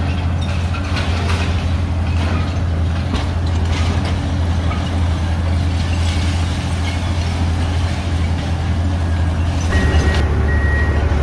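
Long-reach demolition excavator's diesel engine running steadily as its arm breaks into the damaged building, with concrete and rubble crackling and falling. Near the end a machine's reversing alarm starts beeping.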